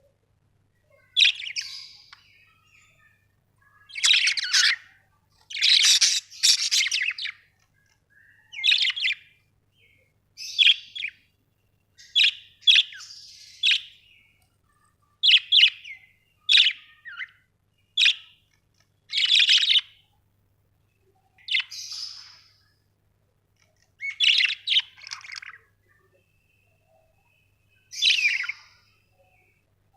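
Budgerigars chirping in short bursts, one every second or two, with quiet gaps between.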